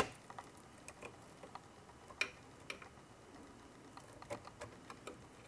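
Scattered light clicks and taps from tools at work on a tube amplifier's metal chassis while wires are desoldered, with a sharp click at the start and another about two seconds in.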